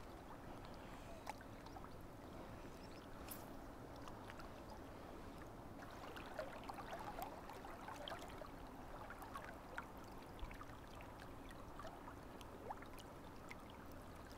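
Faint, steady flow of river water with small scattered ticks and splashes.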